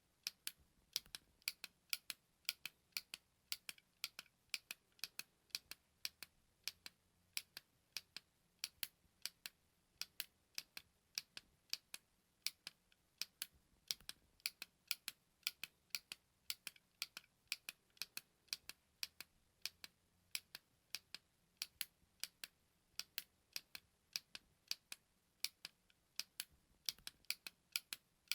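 A small button being clicked over and over: sharp, dry clicks, about two a second, often in quick pairs.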